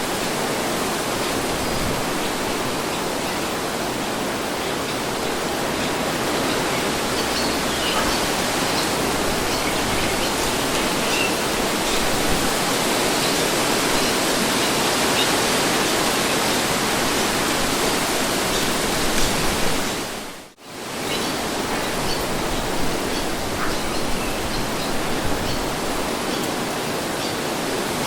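Wind blowing in a steady, even rush. About twenty seconds in it briefly fades out almost to silence and swells back within about a second.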